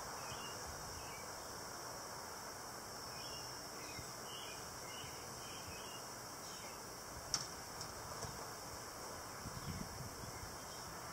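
Faint outdoor ambience: a steady high insect drone with a few soft bird chirps. A single sharp click comes about seven seconds in, the hive tool knocking against a wooden hive frame.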